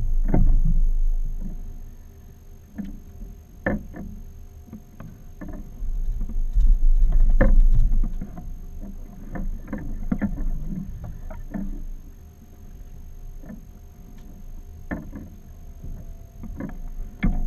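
General sound of a small fishing boat drifting at sea: two loud, low rumbling surges, one at the start and one about six to eight seconds in, with scattered knocks and clicks of gear and handling on deck.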